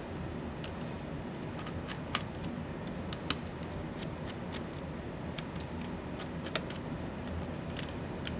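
Small sharp clicks and taps of laptop parts and tools being handled during disassembly, scattered irregularly, with three louder ones about two, three and six and a half seconds in, over a steady low hum.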